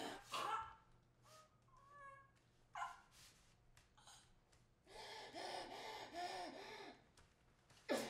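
Strained, choked human cries and moans of a close-quarters struggle: short loud cries at the start, a few thin high whimpers, and a longer run of strained moaning about five seconds in.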